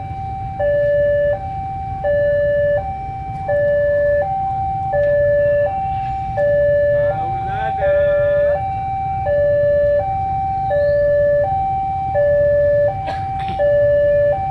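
Railway level crossing warning alarm sounding: an electronic two-tone signal alternating high and low, about one high-low pair every one and a half seconds, over a steady low street rumble. It is the warning that a train is approaching the crossing.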